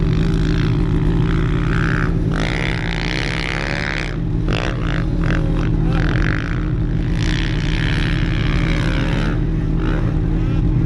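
Two-stroke snowmobile engine running under throttle, its pitch rising and falling as the rider gets on and off the gas, with a rushing hiss over it.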